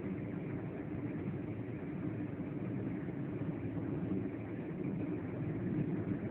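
Steady rumble of a moving vehicle heard from on board, with no change in pace.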